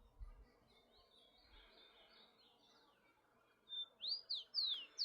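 Rufous-collared sparrow (tico-tico) singing: a short steady whistle near the end, then three or four quick down-slurred whistles, over faint chirping of other birds.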